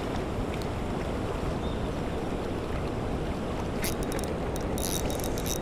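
Steady rush of high water gushing over a concrete spillway and churning below it. A quick run of light clicks and rattles comes near the end.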